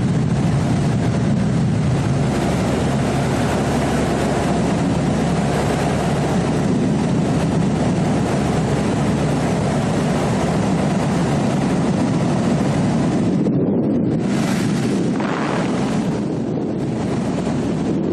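Steady, loud rushing noise, like wind buffeting the microphone during aerial filming. Its higher hiss cuts out and returns a few times near the end.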